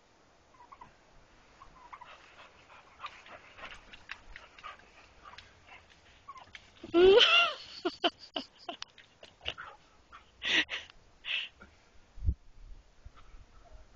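A dog making small whining squeaks, then one louder, drawn-out whining yelp about seven seconds in, followed by a few short yips and a dull thud near the end.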